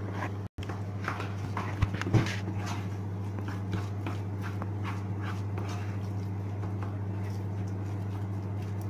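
A spatula scraping and knocking in a nonstick frying pan as a vegetable and vermicelli filling is stirred, with the sharpest knocks about two seconds in. A steady low hum runs underneath.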